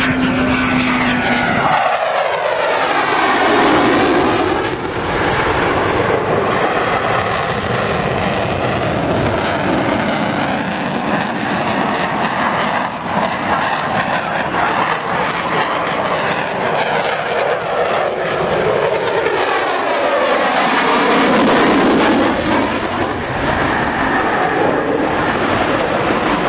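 Military jet aircraft in a display flypast, its engine noise loud and continuous. Two close passes, about 3 seconds in and about 21 seconds in, each bring a pitch sweep that slides downward as the jet goes by.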